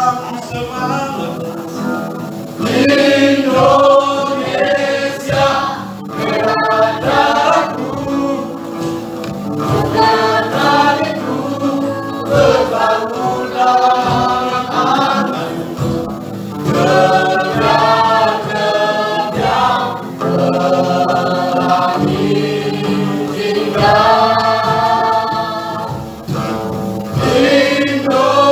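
A small mixed choir of men and women singing in harmony, in sustained phrases of a few seconds each.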